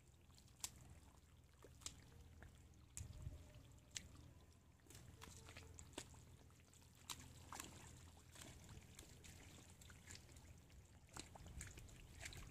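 Faint wet clicks, drips and small splashes of hands digging through soft, waterlogged mud, coming irregularly every second or so.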